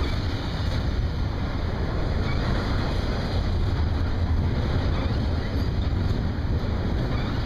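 Double-stack intermodal train's loaded well cars rolling past at close range: a steady low rumble of steel wheels on the rails.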